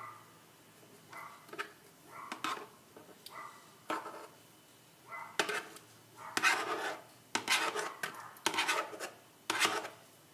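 Knife blade scraping across a plastic plate, pushing cut cherries off into a glass blender jar. The scrapes come in irregular strokes, sparse at first, then more frequent and louder from about halfway in.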